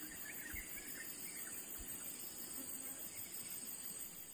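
Faint, steady high-pitched chirring of insects in the riverside vegetation, pulsing fast and evenly, with a few faint bird chirps.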